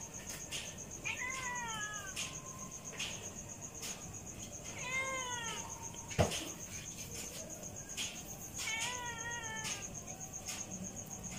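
A cat meowing three times, each meow rising and then falling in pitch, spaced a few seconds apart. A single sharp knock comes a little after the middle.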